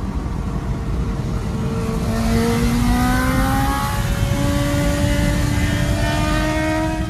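Mahindra Thar's engine pulling hard under acceleration, heard from inside the cabin over wind and road noise; its note climbs slowly, growing louder about two seconds in.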